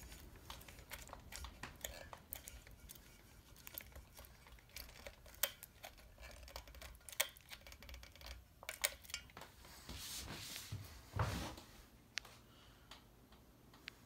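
NuTone Verandah II 52-inch ceiling fan with a spinner motor, running on high: a low steady motor hum with scattered light ticks and clicks. A brief louder rustle comes about ten to eleven seconds in.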